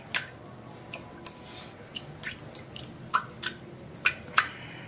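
Red silicone spatula stirring a thin milky liquid in an aluminium pot: soft wet squishing with about ten light, irregular clicks as the spatula knocks the pot.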